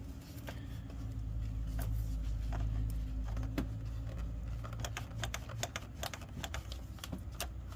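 Scattered light clicks and taps of hands handling hoses and parts in a car's engine bay, coming more often in the second half, over a steady low hum.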